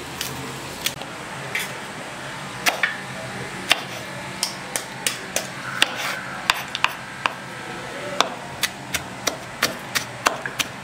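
Kitchen knife chopping onion and green chillies on a wooden cutting board. Scattered knocks come closer together and settle into about three chops a second in the second half.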